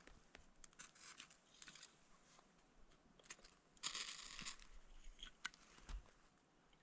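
Faint rustling and crinkling handling noise with scattered small clicks, loudest in a brief rustle about four seconds in.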